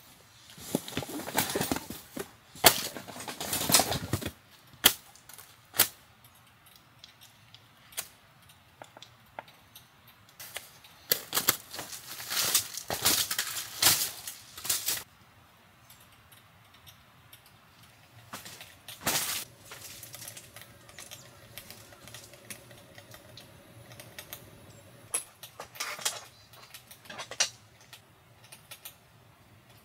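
Camping gear being handled: clicks and knocks of plastic boxes and latches, rustling of fabric bags, and footsteps crinkling across a plastic groundsheet. A faint steady hum shows for a few seconds past the middle.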